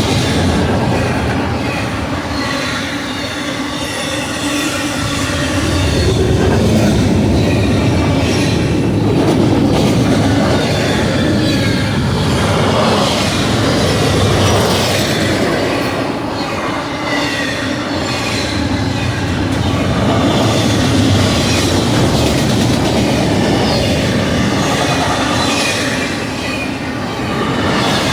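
Union Pacific double-stack intermodal train rolling steadily past: continuous rumble of steel wheels on rail with clacking and a thin, wavering wheel squeal.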